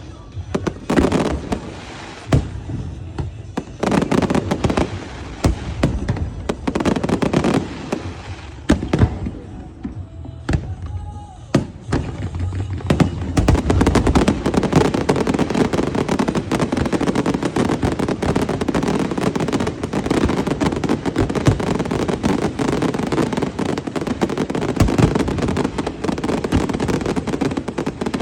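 Fireworks going off: separate bangs and bursts in the first half, then from about halfway a dense, continuous crackle of rapid explosions.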